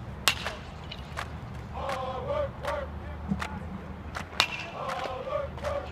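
Baseball bat cracking against pitched balls during batting practice: two sharp loud hits about four seconds apart, with lighter cracks and knocks in between. Players' voices call and chatter underneath.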